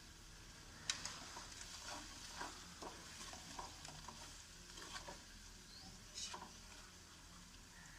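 Masala of tomato, green chilli and ground spices frying in a pan and being stirred: faint sizzling, with the stirring utensil scraping and knocking against the pan. The sharpest knock comes about a second in.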